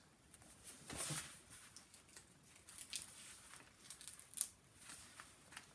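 Faint rustling and crinkling of a diamond painting canvas and its printed adhesive release sheet being handled, with a louder swish about a second in and scattered short crackles after.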